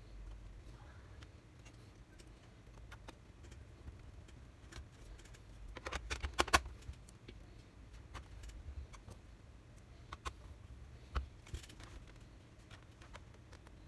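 Scattered small clicks and taps of laptop parts and tools being handled, with a quick run of louder clicks about halfway through, over a steady low hum.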